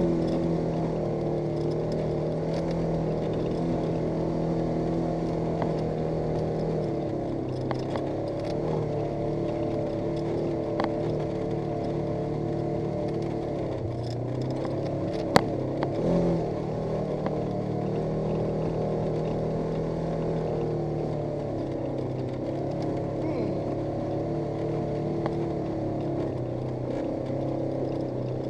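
Vehicle engine running steadily while driving, heard on board; its pitch steps down a couple of times as speed changes. A few sharp clicks come through, the loudest a snap about halfway through followed by a short thump.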